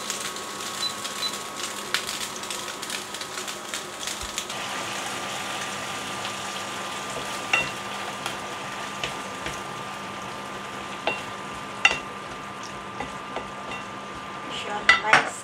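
Pieces of fish sizzling in a nonstick frying pan, with a few sharp taps of a wooden spatula stirring them and a quick cluster of scraping knocks near the end. A steady high tone hums underneath.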